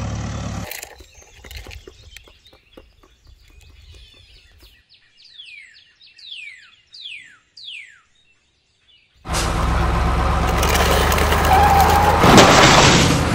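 A bird calls with a run of about six quick downward-slurred whistles, followed by a short hush. Then a loud vehicle engine noise starts abruptly and runs for about four seconds.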